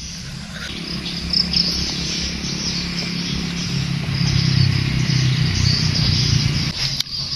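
Insects chirping in a steady, high, even drone. Underneath is a low steady hum that swells through the middle and stops shortly before the end.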